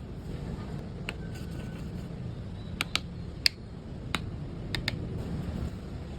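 A handful of short, sharp clicks and taps, some in quick pairs, the loudest about three and a half seconds in, over a steady low rumble.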